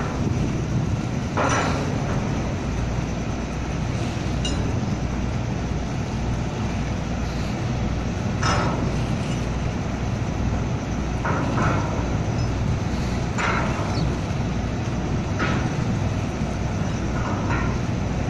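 Steady low rumble of ships' engines during berthing, mixed with wind on the microphone. Short sharp clinks and knocks sound every few seconds, about seven in all.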